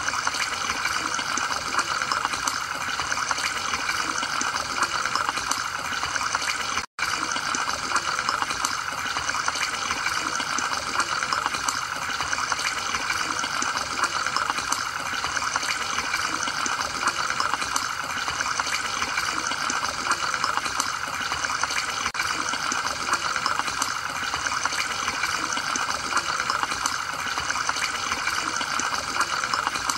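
Steady bubbling and gurgling water from an aquarium's air-driven sponge filter, a dense patter of small bubble pops. The sound drops out for an instant about seven seconds in.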